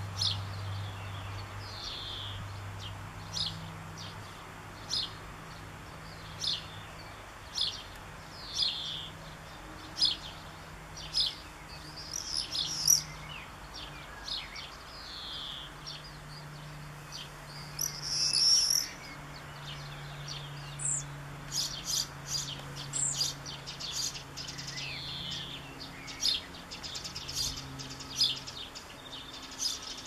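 Fledgling European pied flycatcher begging for a parent with a short, high call repeated every second or so. Other garden birds chirp around it, most densely just past the middle.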